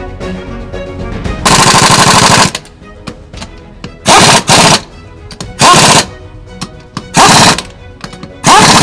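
Pneumatic impact wrench hammering on a Jeep's wheel lug nuts in five loud bursts, one per nut, the first lasting about a second and the rest shorter, with the pitch rising during the later bursts.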